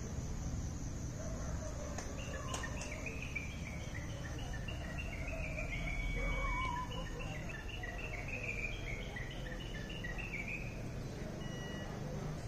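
Outdoor night ambience with crickets: a steady high trill that fades out about two-thirds of the way through, a run of short chirping notes rising and falling over several seconds, and a low background rumble.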